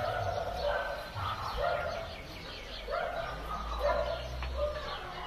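Short animal calls repeating irregularly, one or two a second.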